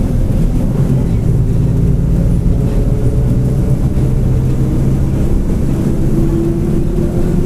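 Mercedes-Benz OF-1722M bus under way, its diesel engine running steadily with the differential growling. A whining tone from the driveline rises slightly near the end.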